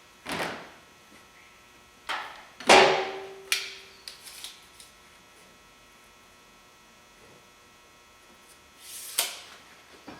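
A handful of separate knocks and clunks spread over quiet stretches, the loudest about three seconds in with a short ringing tone after it, and one more near the end.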